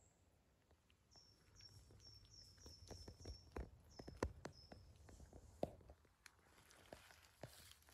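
Faint footsteps on the woodland floor, a few sharp steps standing out, while a small bird repeats a short, high, slightly falling note about nine times over the first five seconds.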